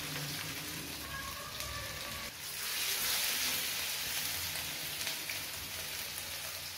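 Chapli kabab patties sizzling in hot oil in a frying pan, a steady crackling hiss that grows louder about two and a half seconds in as a second patty goes into the oil.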